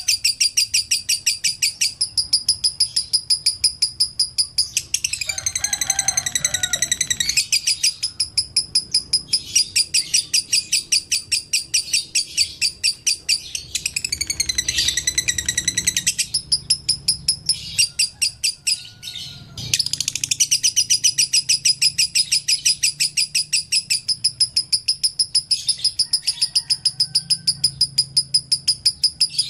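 Lovebird chirping in a fast, continuous string of sharp high chirps, about five a second, twice giving way for a couple of seconds to more varied warbling chatter, about a fifth and halfway through.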